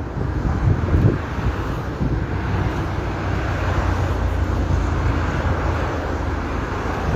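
Steady low outdoor rumble, like road traffic, swelling slightly around the middle.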